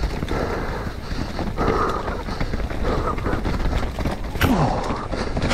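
Mountain bike riding fast down a rough, rocky trail: tyres rolling over leaf litter and stones, with a steady rattle and clatter of many small knocks from the bike.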